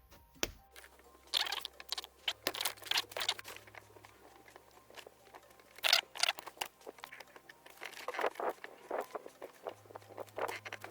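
Screwdriver scraping and clicking against the metal retaining clip at the base of a gear knob's shift boot, twisted to spread the clip and loosen its grip. It comes as irregular bursts of scrapes and clicks.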